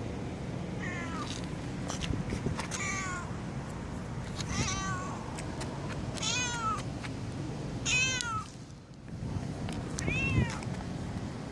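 Domestic cat meowing repeatedly: six short meows about every one and a half to two seconds, each rising then falling in pitch, the last one the loudest. A steady low background noise runs underneath.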